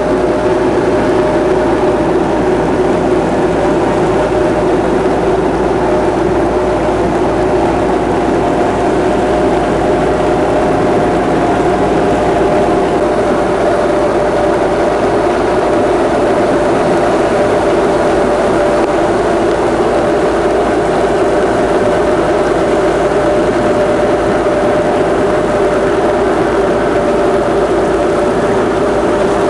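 Motorboat engine running steadily at constant speed, a loud unchanging drone with a steady hum.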